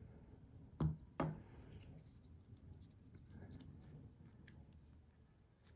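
Two sharp clicks about a second in as small metal parts of a folding knife are handled during disassembly, followed by faint handling noise and a few light ticks.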